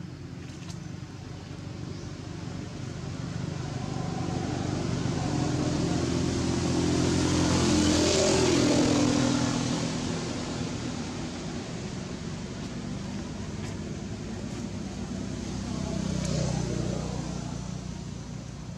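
A motor vehicle engine passing by, growing louder to a peak about eight seconds in and then fading, with a second, smaller swell near the end.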